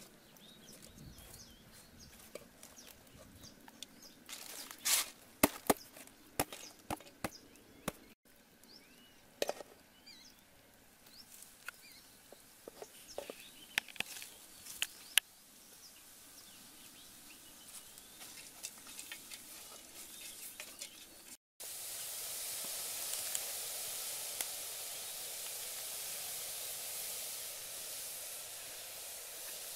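Scattered clicks, taps and rustles of hands handling a woven basket and a metal pot of small shrimp on dry leaves, a few of them sharp and loud. After a break there is a steady hiss that lasts to the end.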